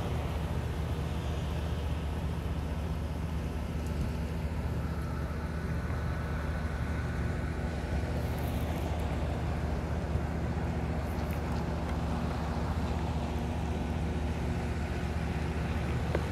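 Steady low hum of a standing passenger train's idling machinery, unchanging throughout, with a faint thin whine in the middle.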